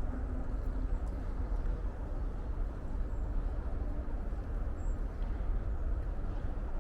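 Outdoor forest ambience dominated by a dense, steady low rumble, with a few faint, short, high bird peeps.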